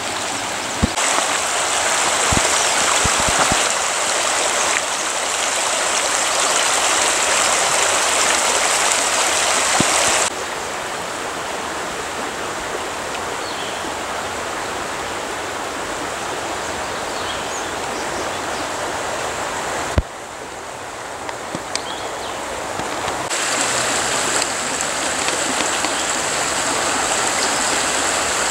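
Rushing water of a mountain creek cascading over rocks at Cataract Falls, a steady dense hiss that shifts abruptly in loudness and tone a few times. A few sharp clicks sound in the first few seconds.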